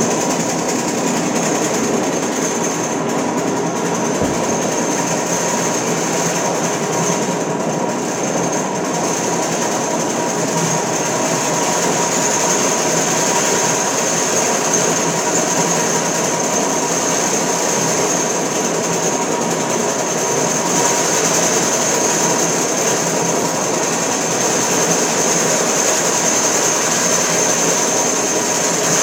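BEF320 three-phase electric scabbler cutting down a very hard concrete slab: its cutter heads hammer the surface in a loud, steady, dense rattle, with a steady high whine running through it.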